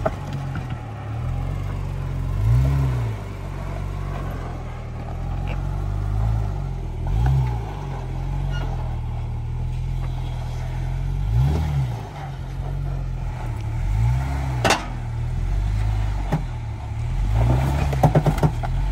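Jeep Wrangler engine running at low crawling revs, revved up and back down briefly about every four to five seconds as the lifted Jeep climbs over boulders. One sharp knock comes about two-thirds of the way through, and a short clatter of knocks near the end.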